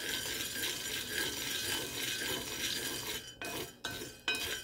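Roasting coffee beans stirred in a cast iron skillet, rattling and scraping against the iron. The stirring is continuous at first and breaks into separate strokes with short pauses near the end.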